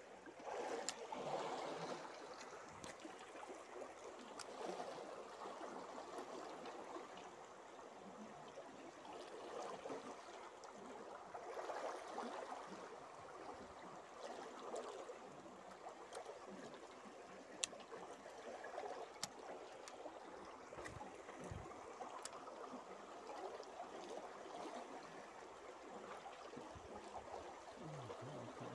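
Swift, muddy river current running steadily over and around snags, a faint rushing and gurgling of water, with a few faint clicks, one sharper about two thirds of the way in.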